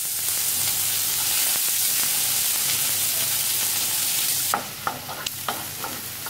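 Raw chopped onions sizzling loudly in hot oil in a non-stick frying pan. About four and a half seconds in, the sizzle drops and a wooden spatula stirs the onions, with short scraping strokes against the pan.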